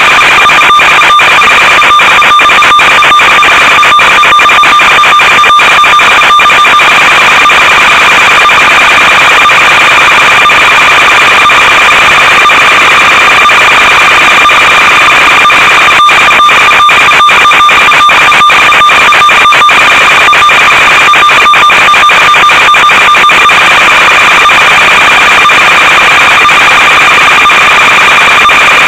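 Loud hiss with a steady high-pitched buzzing tone from the audio channel of an analog FPV video link, broken by rapid crackling in clusters for the first several seconds and again from about halfway through.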